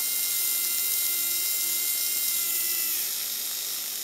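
Small hobby servo, modified for continuous rotation, its motor and plastic gear train running with a steady high whine that stops about three seconds in, leaving a fainter gear sound.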